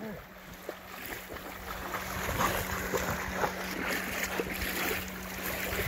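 Wind on the microphone and small waves lapping at the shoreline and against a moored boat's hull, under a steady low hum.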